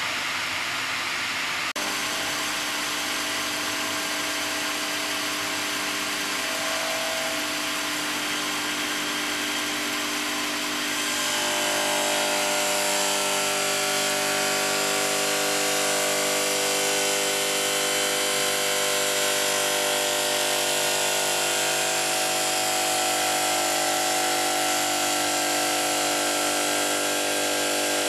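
HLSQ-450 bridge stone cutting machine's circular diamond saw blade cutting through a water-cooled stone slab: a steady grinding whine with several held tones over a hiss, growing louder about eleven seconds in.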